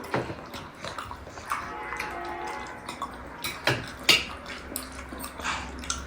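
Eating sounds of a person eating noodles: irregular mouth smacks and sharp clicks, the loudest two a little under four seconds in, over a low background hum.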